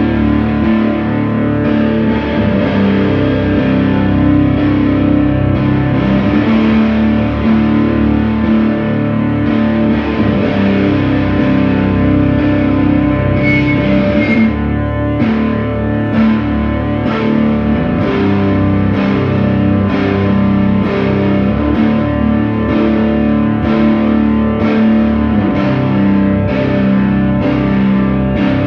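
Loud drone music: sustained, distorted Travis Bean TB1000S electric guitar through effects pedals layered over held Casio keyboard tones. From about halfway in, a steady pulse of struck notes a little faster than once a second joins the drone.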